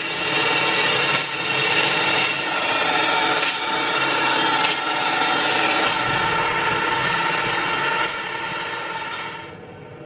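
Road line-marking machine running steadily, its engine and spray equipment making a loud, even mechanical drone that drops away near the end.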